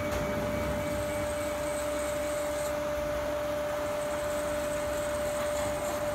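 CNC milling machine running steadily, a constant whine over a mechanical hum.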